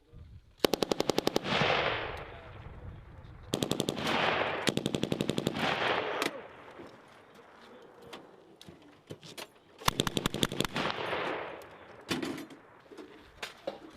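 7.62 mm M240B belt-fed machine gun firing short bursts of rapid shots, four or five bursts of about a second or less, each followed by a rolling echo.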